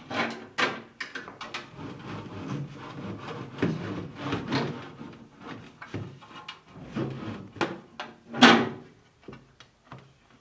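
Fridge drawers and shelves being handled: an irregular run of knocks, slides and scrapes, the loudest knock about eight and a half seconds in.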